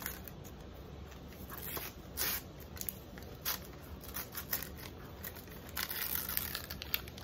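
Gift wrapping paper being torn and peeled off a small box by hand, in short irregular rips and crinkles, with louder tears about two seconds in and near the end.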